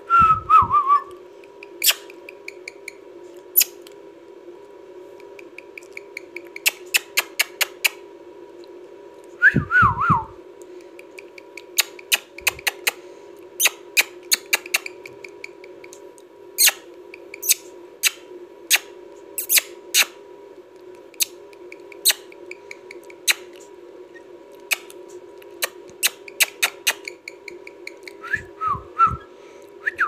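A rose-ringed parakeet being petted gives short falling whistles three times: at the start, about ten seconds in, and near the end. Many sharp clicks are scattered between them, over a steady hum.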